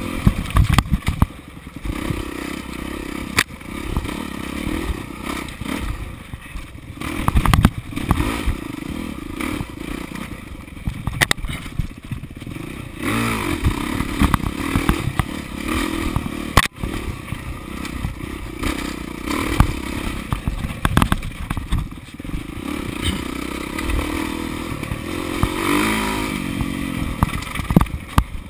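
Off-road dirt bike engine revving up and down as it is ridden hard through the trail, its pitch rising and falling with the throttle. Frequent sharp knocks and clattering rattles from the bike going over rough ground.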